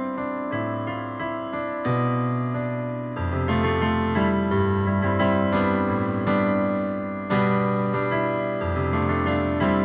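Piano playing a slow worship-song arrangement in sustained chords over a moving bass line, with new chords struck about two, three and seven seconds in.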